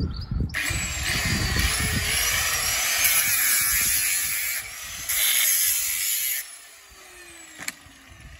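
Handheld power tool cutting into the metal frame of a baby buggy: a harsh, hissing cut for about four seconds, a short break, a second shorter cut, then it stops. A single sharp knock comes near the end.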